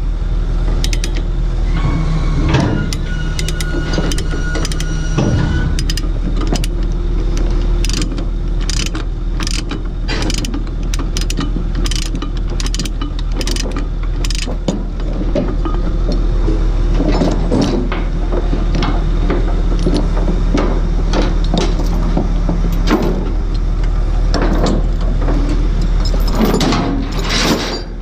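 Steel tie-down chains and a ratchet chain binder being worked by hand: a run of even ratchet clicks about two a second, then looser clanks and rattles as the chain is freed. A steady diesel idle runs underneath.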